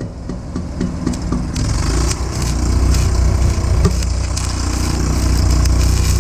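Stick-welding arc struck about a second and a half in, crackling and sizzling steadily as bars are welded onto a steel pipe fence post. A steady engine drone runs underneath.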